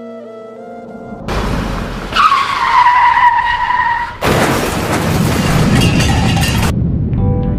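Car sound effect: a vehicle rushes in and its tyres screech in a long squeal that sinks slightly in pitch, then about four seconds in a sudden loud crash as it strikes a pedestrian.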